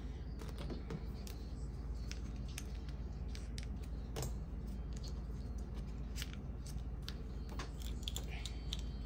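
Scattered light clicks and taps of small hair-colour supplies (bottles, tubes, a metal cap) being handled and set down on a hard table top, over a steady low hum.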